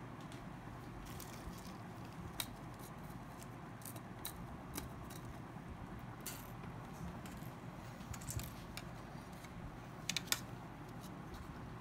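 Small clicks and taps of tools and phone parts being handled during a smartphone teardown, scattered irregularly, with a quick run of three clicks about ten seconds in, over a steady low hum.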